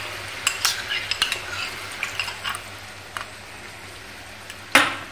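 Gravy sizzling faintly in a nonstick frying pan while liquid is spooned in from a ceramic bowl and stirred with a wooden spatula, with several light clinks of spoon on bowl and pan in the first second or so. A louder single knock of utensil on pan comes near the end.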